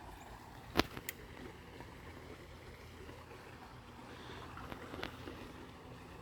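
A sharp click about a second in, a fainter one just after and another near the end, over a faint steady outdoor hiss.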